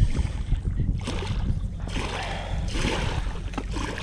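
Strong wind buffeting the microphone in an uneven low rumble, with a stretch of rustling noise through the middle.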